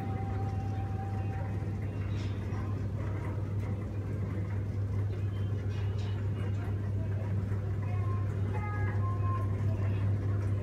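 Old Ferris wheel's drive machinery running as the wheel turns, a steady low hum with faint mechanical noise over it.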